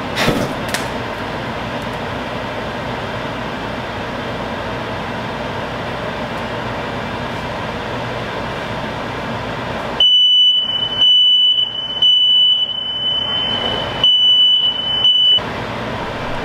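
A steady rushing noise with a couple of knocks at the start, then, about ten seconds in, a smoke alarm sounds a loud, high, piercing tone in roughly one-second stretches with short breaks, for about five seconds, set off by smoke from a pan fire on the stove.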